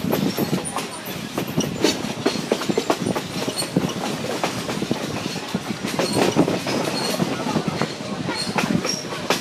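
Vintage passenger coach running along the track at speed: a steady rumble and rattle of the car with irregular clicking of the wheels over the rail joints.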